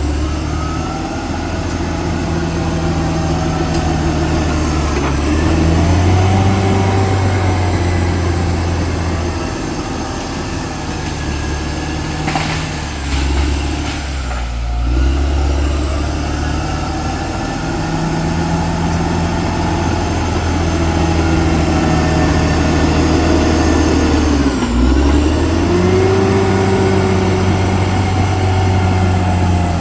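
Diesel engine of a CAT D6R XL bulldozer working hard and running steadily. Its revs sag and recover several times as the machine takes load.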